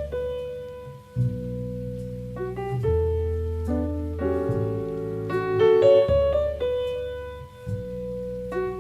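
Background music: a piano piece with sustained bass notes under a melody.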